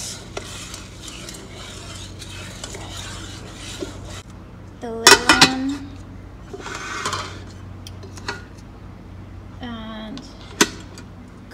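A plastic spoon stirring rice and water in a rice cooker's inner pot. About five seconds in, the glass lid clatters down onto the pot with a few sharp, ringing clicks. Near the end there is a single sharp click as the Proctor Silex rice cooker's switch is pressed down to cook.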